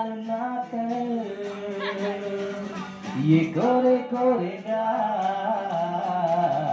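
A man sings into a microphone in long, held notes, with an acoustic guitar playing along.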